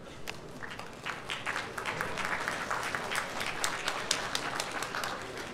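Audience applauding: a few claps at first, swelling into dense clapping about a second in, then thinning out near the end.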